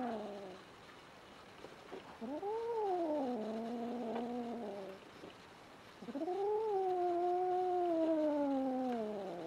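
Kitten giving long, drawn-out threat yowls at another cat: the end of one call, then two more of about three seconds each, every one rising and then falling in pitch. It is a hostile warning call.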